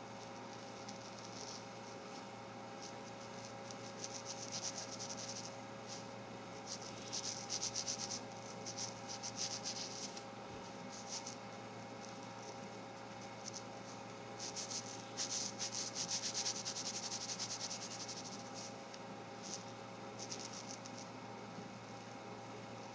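Fine brush-pen tip stroking across glossy photo paper, a dry scratchy rubbing that comes in several runs of short strokes. The longest run lasts about three seconds past the middle. A steady faint hum runs underneath.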